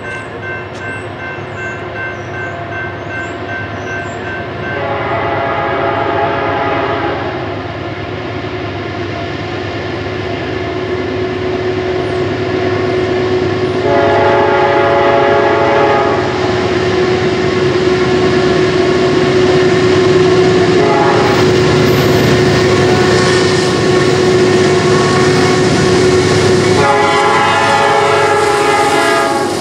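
A Norfolk Southern GE D9-44CW diesel locomotive approaches and sounds its Nathan P5 chime horn in three long chord blasts several seconds apart, with one note held on between the second and third. Underneath, the rumble of the locomotive and train grows steadily louder.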